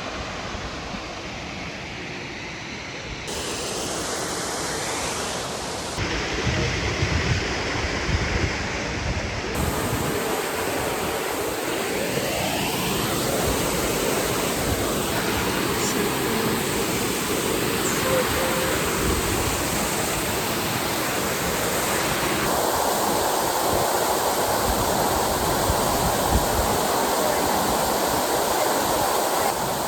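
Sour Milk Ghyll waterfall rushing: a steady, loud noise of fast-falling water that changes abruptly in level and tone several times, at cuts between shots.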